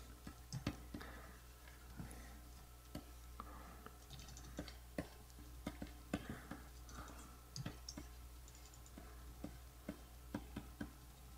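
Scattered light clicks and taps from a computer keyboard and pointing device, coming irregularly a few times a second, over a faint steady low hum.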